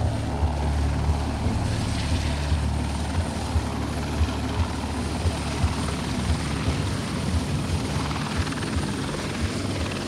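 Light helicopter hovering low while setting down a sling load, its rotor and engine running steadily.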